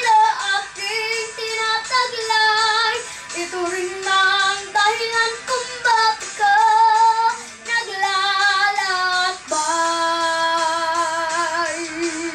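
A young girl singing through a handheld microphone in long, drawn-out notes with vibrato, ending on one long held note. Backing music with a steady beat plays behind her.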